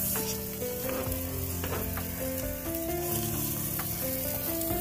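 Chicken and hot dogs sizzling on a gas grill, with a few sharp clicks of metal tongs. A melody of held notes plays alongside.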